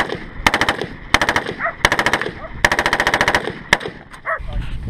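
A full-automatic firearm firing in short bursts of rapid shots, about five bursts in a row with the fourth the longest, then a lone shot a little before the end.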